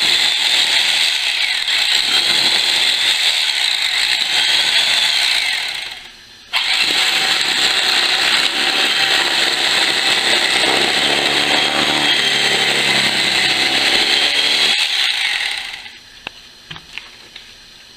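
Electric carving knife motor running, its serrated blades buzzing as they are honed in a handheld sharpener. It cuts out briefly about six seconds in, runs on again and stops near the end.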